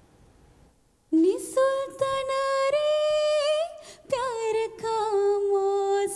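A young woman sings solo and unaccompanied into a handheld microphone, starting about a second in with long held notes and a short break partway through. A judge afterwards hears a slight over-pitching (sharpness) in her voice.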